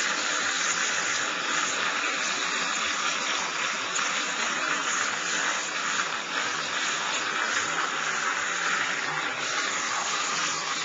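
Steady rushing of running water in a bath, an even hiss that holds unchanged throughout.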